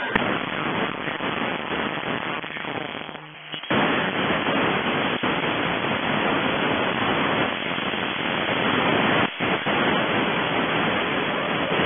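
Radio receiver hiss from a WinRadio WR-31DDC tuned to an empty spot on the 11-metre CB band, with no station coming through. The hiss dips out briefly about three seconds in and cuts for an instant just after nine seconds.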